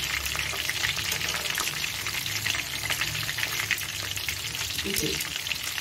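Thread chicken pieces shallow-frying in bubbling oil in a wok: a steady, dense crackling sizzle, with the pieces being turned over with tongs.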